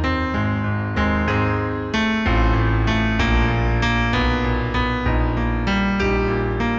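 Piano playing an instrumental passage of a gospel song: a run of struck chords over a deep, sustained bass.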